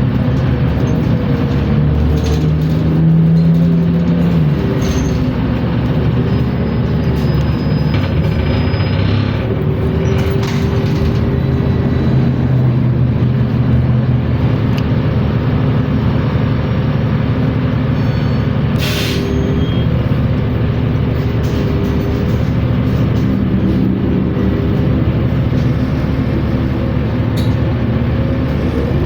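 New Flyer Xcelsior XN60 articulated bus running, its engine drone overlaid by a thin wavering whine from the transmission that shifts up and down in pitch and climbs near the end: the weird transmission sound. A short air hiss comes about two-thirds of the way through.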